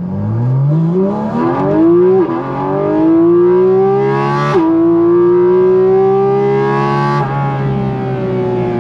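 Porsche 718 Cayman GT4 RS's 4.0-litre flat-six accelerating, its note climbing through the revs. Quick PDK upshifts come about two and four and a half seconds in, then the revs drop about seven seconds in and the engine runs steadier.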